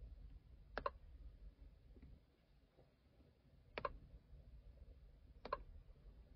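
A plastic stylus tapping the touchscreen of a Genius handheld ECU programming tool. There are three sharp clicks: a quick double tap about a second in, then single taps near four seconds and five and a half seconds.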